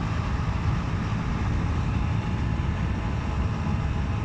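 Steady rushing wind and engine rumble from an Aprilia Tuono 125 motorcycle on the move.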